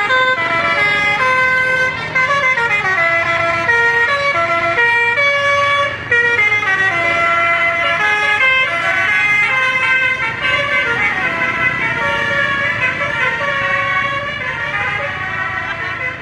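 A bus's telolet basuri melodic horn playing a tune: a loud run of stepped horn notes in several parts, with short breaks about two and six seconds in, fading somewhat near the end.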